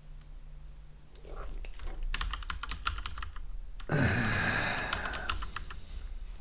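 Computer keyboard typing: a quick run of keystrokes entering a search into the web browser's find bar. About four seconds in, a louder, breathy rush of noise lasts for a second or so while a few more keystrokes follow.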